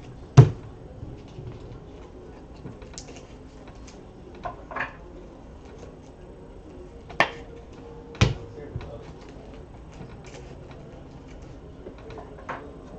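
Trading cards being handled and slid into plastic sleeves and rigid plastic top loaders, giving a few scattered sharp clicks and taps against the table. The loudest comes about half a second in.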